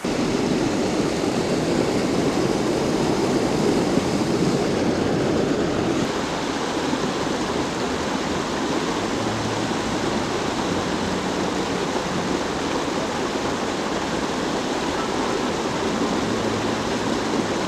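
Small waterfall on a snowy mountain creek pouring into a plunge pool: a steady rush of water, a little louder in the first few seconds.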